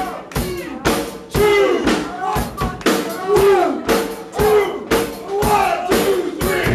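Live rock band starting a song: the drum kit beats out the intro with sliding pitched notes over it, and the bass guitar and full band come in at the very end.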